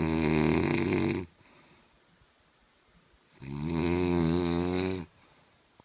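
A person snoring loudly: two long snores of a second and a half or more, one at the start and one about halfway through, with near quiet between them.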